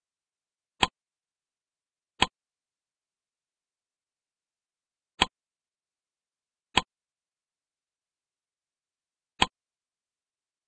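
Five sharp single clicks of a computer mouse, unevenly spaced, with dead silence between them.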